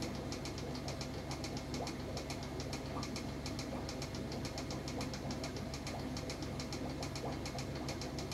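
Steady low mechanical hum with a rapid, uneven clicking over it.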